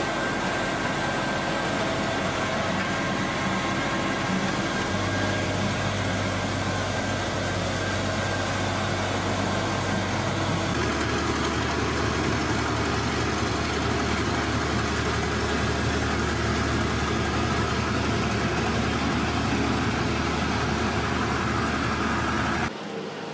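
Engines of road-construction machinery running steadily, a continuous engine drone over a low hum. The hum changes pitch abruptly about five and eleven seconds in, and the sound drops away suddenly near the end.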